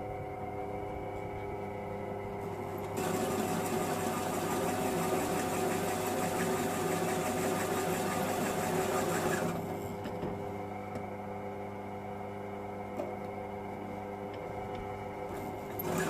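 Bench drill press motor running steadily while a 1-inch hole saw, damaged and hand-resharpened, cuts through the box's sheet steel. About three seconds in, a harsh cutting noise joins the hum for about six seconds, eases off, and picks up again at the very end.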